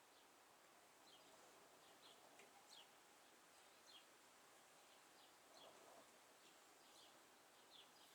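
Near silence with faint bird chirps, short quick falling notes repeated every half second to a second, over a low steady hiss.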